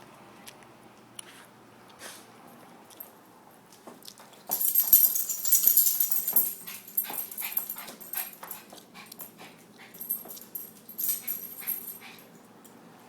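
Shih Tzu moving about: a run of rustling and clicking, loudest from about four and a half to seven seconds in, and again briefly around eleven seconds.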